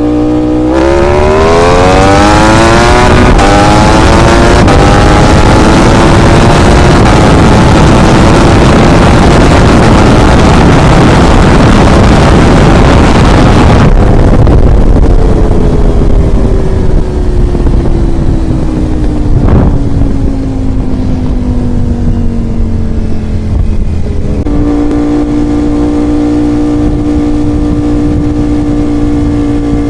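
Ducati Panigale V4 R race bike's V4 engine under hard acceleration: the revs climb steeply, there is an upshift about three seconds in, then a long pull with loud wind rush. About halfway through the throttle closes and the engine note falls steadily as the bike slows, settling into a steady lower note near the end.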